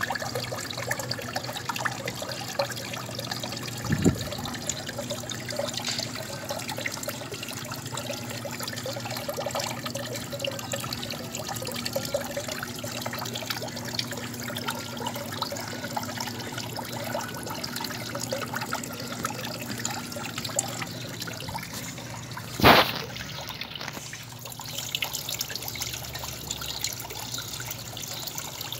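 Water trickling and splashing steadily into a turtle pool from a hose outlet, with a faint steady hum underneath. A small knock comes about four seconds in and a louder sharp knock near the end.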